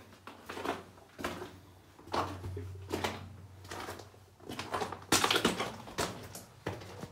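Footsteps crunching on loose rock and gravel of a mine tunnel floor, irregular steps about one a second, the loudest about five seconds in.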